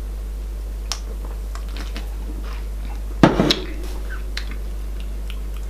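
A drink can set down on a desk with a short knock about three seconds in, after a few faint small clicks, over a steady low hum.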